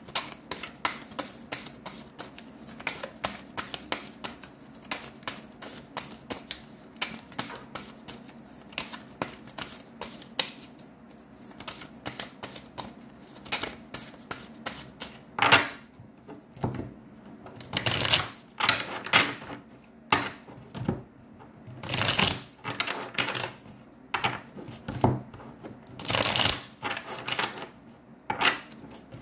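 A deck of tarot cards being shuffled by hand: a quick run of light card clicks for about the first half, then separate louder swishes of the deck every second or two.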